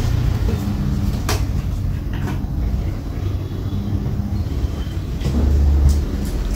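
A steady low rumble with a few sharp metal clicks: a Zippo lighter's hinged lid being snapped open and shut, once about a second and a half in, again just after two seconds, and twice near the end.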